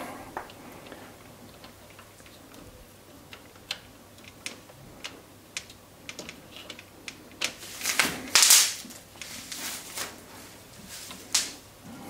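An Allen key clicking and scraping in the top-cap bolt of a bicycle stem as it is turned to tighten it. Scattered small clicks, with a louder stretch of rustling handling noise about eight seconds in.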